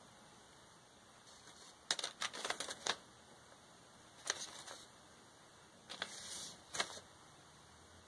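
Small crystal rhinestones clicking and ticking against each other and the paper sheet as they are picked up one by one with a pick tool and pressed onto a glued buckle. The clicks come in three short clusters, about two seconds in, halfway through and near the end, over a faint room tone.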